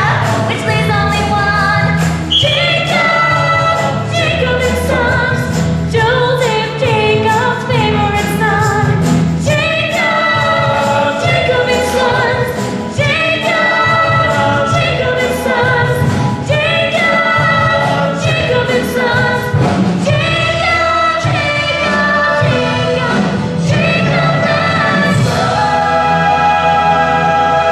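A musical-theatre chorus of many voices singing with accompaniment, moving through short sung phrases and closing on a long held chord near the end.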